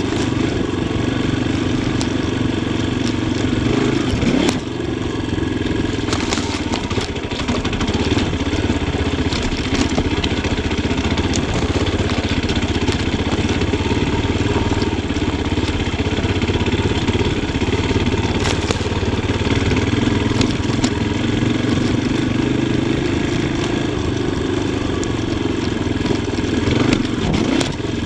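Yamaha Tricker XG250's single-cylinder four-stroke engine running under a rider, the throttle opening and closing so the pitch drops and rises now and then, with a few sharp knocks and clatters from the bike.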